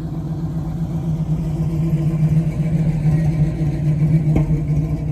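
1981 Chevrolet Camaro's engine running as the car is driven on the road, swelling louder in the middle and easing off near the end, with a short knock about four seconds in.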